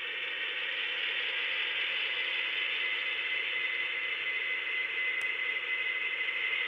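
Atlas HO-scale GP40-2 model diesel locomotive's DCC sound decoder playing diesel engine sound through its small onboard speaker as the model pulls away along the track: a steady, thin, hissy engine sound with a faint high whine that grows a little stronger after a couple of seconds.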